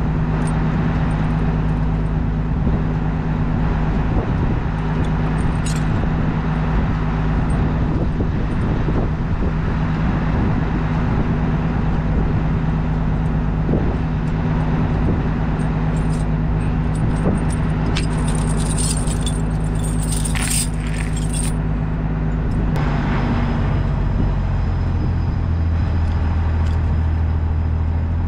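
Pickup truck driving, its engine running steadily under constant road noise. A bright jingling rattle comes up about two-thirds of the way through, and near the end the engine note drops lower as the truck slows.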